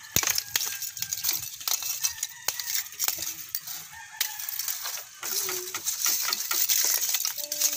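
Lumps of charcoal clinking and rattling against each other as they are loaded into a plastic-drum water filter, many sharp clicks in quick succession. A few short animal calls sound between the clinks.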